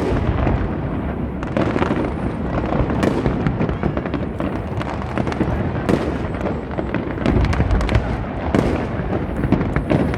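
Big fireworks display going off continuously: a dense run of deep booms from aerial shells with many sharp bangs and crackles over them, the blasts echoing over the river.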